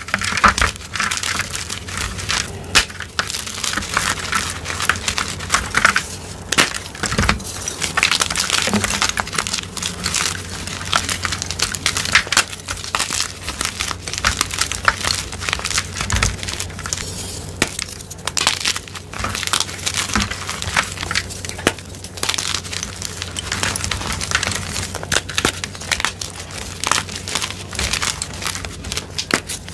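Blocks of gym chalk crushed and crumbled in bare hands: a dense, continuous crunching made of many small cracks and snaps as the blocks break into chips and powder.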